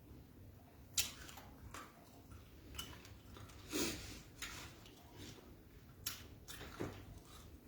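Close-miked mukbang eating: a person chewing beans and fried plantain, with irregular wet smacks and clicks of mouth or spoon, about seven in all.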